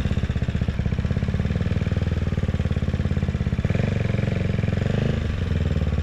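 CCM Spitfire Six's 600cc single-cylinder engine running at low speed while filtering through traffic, with a steady, rapid thump of firing pulses.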